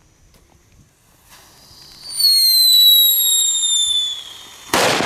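A Category 1 'Knetter King' ground firework going off: a hiss builds, then a loud whistle slowly falls in pitch for about two seconds. Near the end a sudden loud bang hits, and a noisy crackle follows it.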